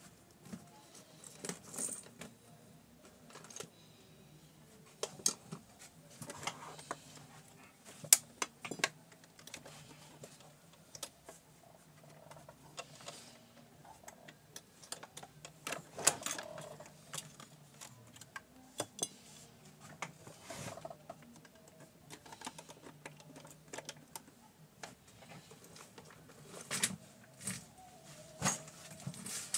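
Small metal parts of a portable Singer sewing machine being handled and taken off by hand: irregular clicks, taps and light rattles as the needle plate and its parts are removed, with a faint low hum underneath.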